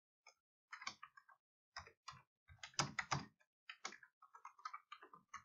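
Typing on a computer keyboard: a run of faint, irregular keystrokes.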